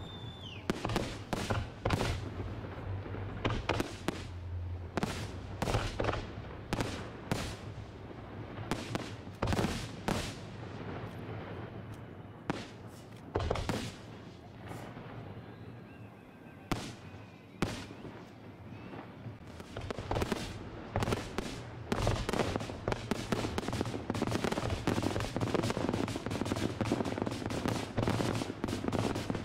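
Fireworks display: aerial shells bursting in a run of sharp bangs. The bangs come thinner in the middle and thick and fast over the last third.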